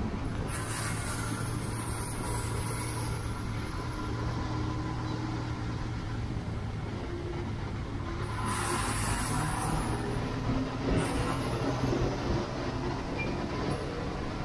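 Motor vehicle engine running with a steady low hum, with bursts of hiss about a second in and again about nine and eleven seconds in.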